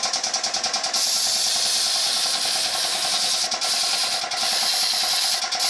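Paint spray gun fed by an air compressor: a rapid mechanical pulsing for about a second, then the steady hiss of compressed air and paint spraying, broken off briefly a few times.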